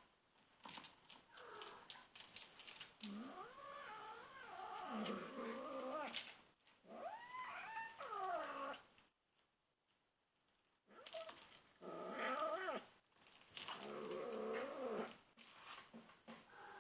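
Young kitten growling in long, wavering, pitched calls while guarding her toy, with a pause of about two seconds midway.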